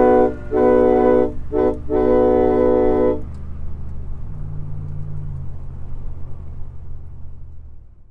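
Multi-chime air train horn sounding four blasts, long, long, short, long, in the pattern of a grade-crossing signal, its several notes ringing together as one chord. A low steady rumble runs under the blasts and continues after them, shifting up about four seconds in.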